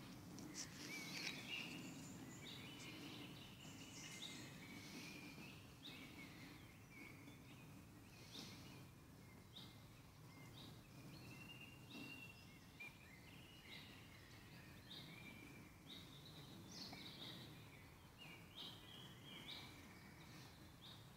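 Faint woodland birdsong: several small birds chirping, with short trilling phrases scattered throughout, over a steady low background noise.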